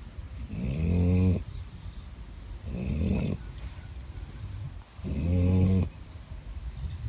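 Sleeping dog snoring loudly: three long, rasping snores about two seconds apart, with quieter breathing between them.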